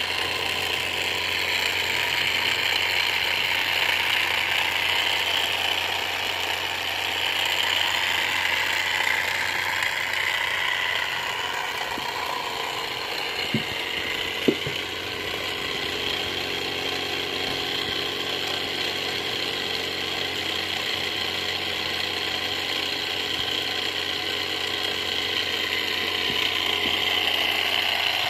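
A motor-driven machine running steadily: a constant hum with a rattling hiss over it. Two sharp clicks come about halfway through.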